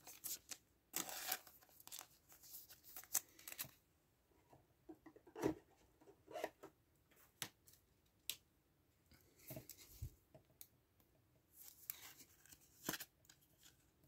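Faint crinkling of soft plastic and scattered light clicks and taps from handling a trading card and a clear plastic card sleeve, with a longer rustle about a second in.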